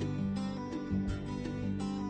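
Music with a steady beat, led by strummed guitar.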